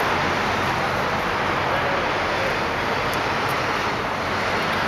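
Steady, even roar of traffic noise with no distinct events.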